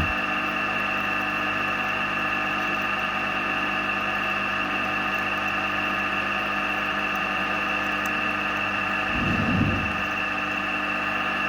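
Drilling machine running steadily with a small drill bit cutting a pilot hole at an angle through a small metal block, a constant motor whine with a brief louder, rougher patch about nine seconds in.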